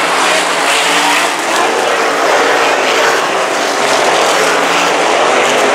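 A pack of RaceSaver 305 winged sprint cars racing, their V8 engines running loud and continuous as the cars pass by together.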